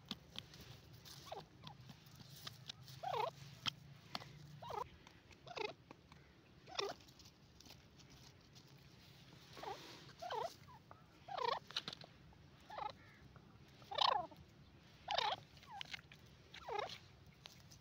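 Grey francolin giving about a dozen short, soft calls at irregular intervals, each a quick swoop in pitch, with faint ticks between them.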